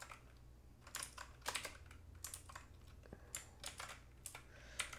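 Computer keyboard being typed on in short, irregular bursts of key clicks, faint, over a low steady hum.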